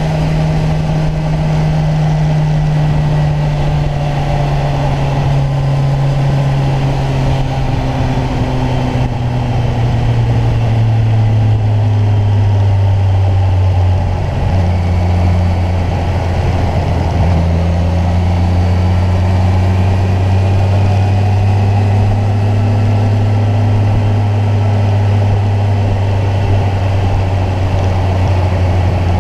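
Kawasaki Ninja 1000's inline-four engine running under way. Its pitch sinks slowly over the first twelve seconds or so, breaks briefly about fourteen seconds in, then holds steady and lower to the end.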